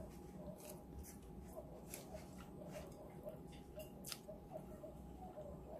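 Faint eating sounds of stir-fried glass noodles taken with wooden chopsticks: chewing and noodles being sucked in, with many small scattered clicks.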